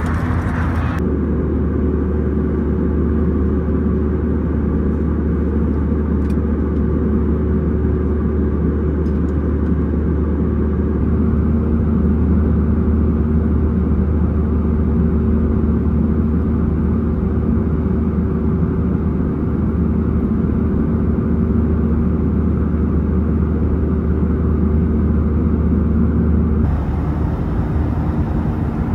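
Airbus A320-200 cabin noise in flight: a steady low rumble of engines and airflow with a faint even hum. Its tone shifts slightly about a second in and again near the end.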